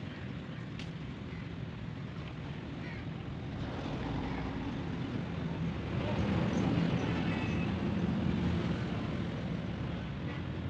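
An engine running steadily, swelling louder through the middle and easing off again near the end.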